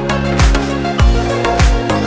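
Background music with a steady beat: electronic dance-style track with thumping kick drums and sustained notes.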